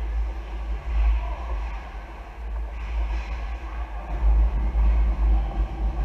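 Steady low rumble with a faint hiss above it: ice-rink ambience during a hockey game.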